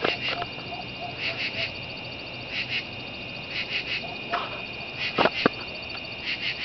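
Outdoor night chorus of frogs: a steady high-pitched background of many calling frogs, with nearer calls coming in short groups of two or three about once a second. A couple of sharp knocks sound about five seconds in.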